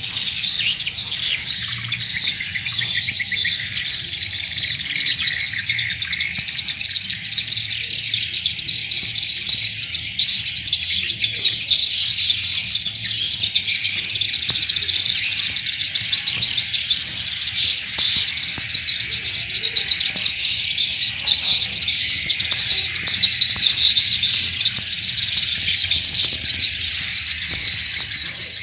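Recorded edible-nest swiftlet calls, a dense, continuous chorus of high twittering chirps. It is a lure-call track of the kind played from swiftlet houses to draw the birds in to roost and nest.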